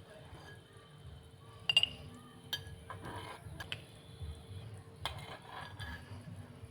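Kitchen utensils and dishes clinking and knocking together: a handful of sharp clinks with a short ring, the loudest pair just under two seconds in, over a low steady hum.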